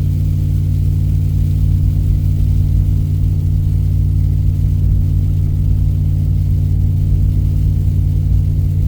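Truck engine and road noise heard from inside the cab while driving, a steady low drone.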